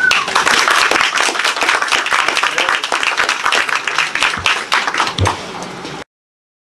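Audience applauding, the clapping cut off abruptly near the end.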